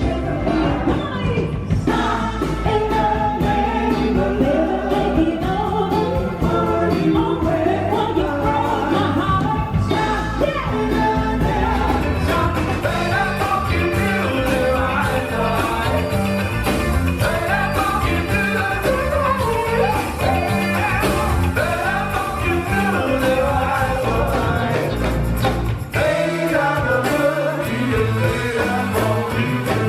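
Live band playing Motown soul music with singing. The bass drops out for a couple of seconds near the end.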